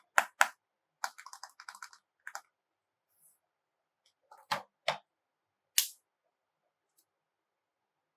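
Small plastic toy pieces handled and set down: two sharp clicks, a quick run of light rattling clicks, then a few single taps with silence between them.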